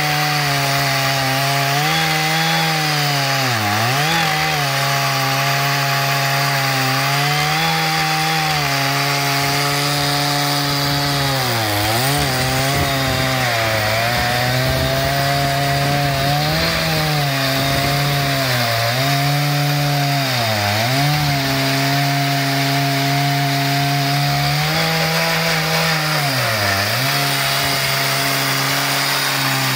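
Stihl MS 880 two-stroke chainsaw running at full throttle in a chainsaw mill, ripping lengthwise through an oak log. The engine note sags briefly about six times as the chain loads up in the cut, then picks back up.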